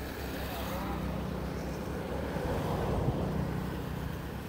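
Sumitomo SH130 excavator's diesel engine running steadily while the machine works. The sound grows louder about halfway through, then eases off.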